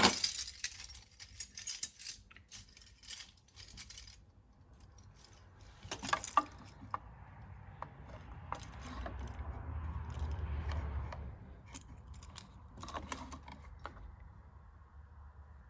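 Metallic jangling and sharp clicks from something being handled, loudest in the first second, then scattered clicks and a low hum that swells and fades in the middle.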